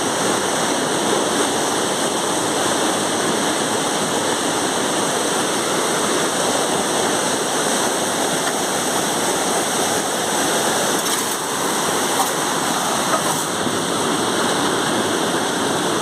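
Steady rush of fast water pouring over a rocky waterfall, an even noise without breaks.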